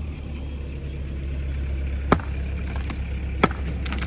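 Two sharp ringing knocks about a second and a half apart, from hand demolition hammering on the old building, over a steady low engine hum.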